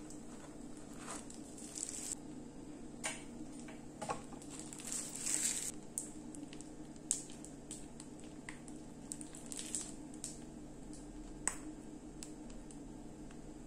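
Quiet handling sounds: a few light clicks as a chocolate egg shell is set into a paper box, then the rustle and soft squish of a plastic piping bag being squeezed as creamy passion-fruit filling flows out. A faint steady hum runs underneath.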